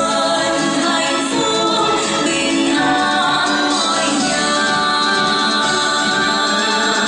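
Two women singing a Vietnamese spring song as a duet into handheld microphones.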